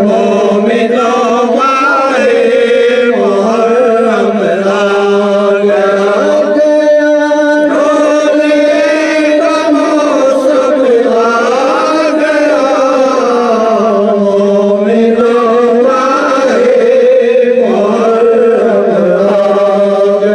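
Male voices chanting a noha, a Muharram lament sung in Urdu, the melody held and bent in long drawn-out lines.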